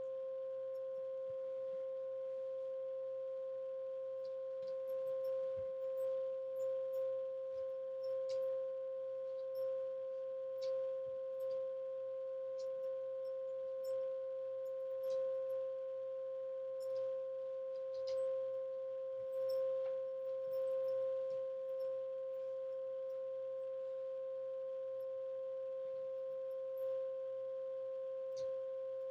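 A steady 528 Hz tone, the 'solfeggio' frequency used for energy healing, held without a break, with a fainter overtone an octave higher. Faint soft clicks come now and then.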